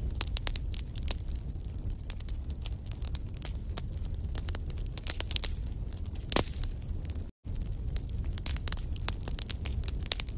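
Wood fire crackling, with many quick sharp pops over a steady low rumble. One louder pop comes about six seconds in, and the sound cuts out for a split second just after seven seconds.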